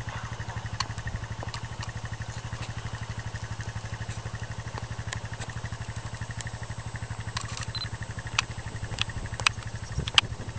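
An engine idling with a steady low throb. A few sharp clicks fall over it in the second half, and a digital camera gives a short high beep about two-thirds of the way through.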